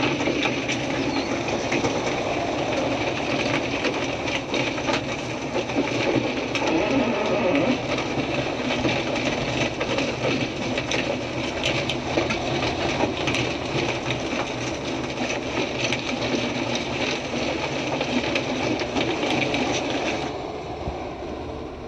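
Overturned box truck being dragged on its side across concrete pavement by a rotator tow truck: steady metal-on-concrete scraping and grinding full of small clatters, over a diesel engine running. The scraping eases off near the end.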